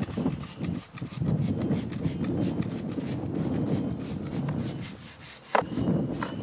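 Degreaser being squirted from a trigger spray bottle onto an old chainsaw and scrubbed in with a stiff brush: a run of irregular rubbing and scratching strokes, with a short squeak about five and a half seconds in.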